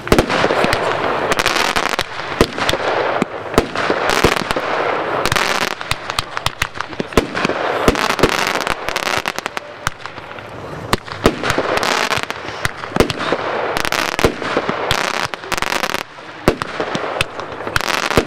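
Vuurwerkvisie 'Modern Mayhem' fireworks cake firing: a rapid run of sharp shots and aerial bursts, several a second, over a continuous dense crackle. The fire thins briefly about halfway through and again near the end.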